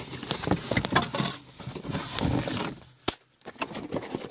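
Irregular rustling and clicking from the handheld camera being moved about, with one sharp click about three seconds in.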